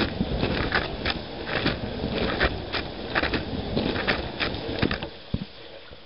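Dishwasher wash cycle heard from inside the tub: water from the spray jets spatters against the camera in quick irregular bursts over a low rumble. It stops abruptly about five seconds in, leaving a faint hiss and one knock.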